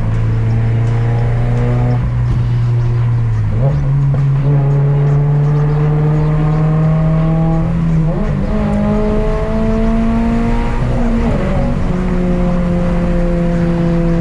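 Toyota GR86's 2.4-litre flat-four, fitted with an AWE aftermarket exhaust, accelerating as heard from inside the cabin. Its pitch climbs steadily and drops back at each upshift, about three times.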